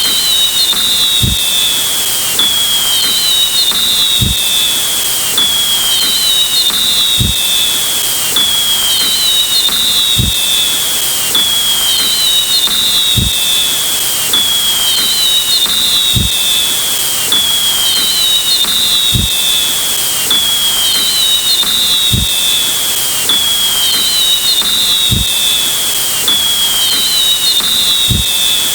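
Looping electronic sound effect: a steady loud hiss with a short whistle-like tone that falls in pitch, repeating about every second and a half, and a low thud about every three seconds.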